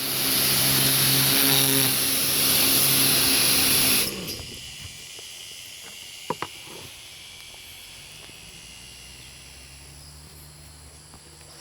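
Pressure washer spraying: a loud hiss of the water jet over the machine's pulsing hum. The spray cuts off suddenly about four seconds in, leaving a low steady hum and a couple of sharp clicks.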